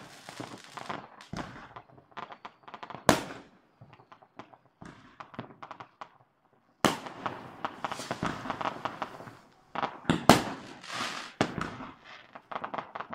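New Year's Eve fireworks and firecrackers going off: sharp bangs amid rapid crackling, with a loud bang about three seconds in and another about ten seconds in. A dense run of crackling starts about seven seconds in, just after a brief lull.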